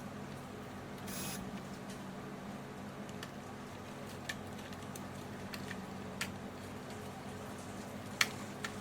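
A few sharp, isolated light clicks and taps of small parts being handled, over a steady low hum, with a brief rustle about a second in; the loudest click comes near the end.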